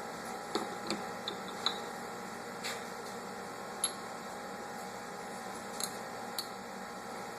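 Scattered light clicks and taps of small metal engine parts being handled during a teardown, about eight in all, over a steady low hum.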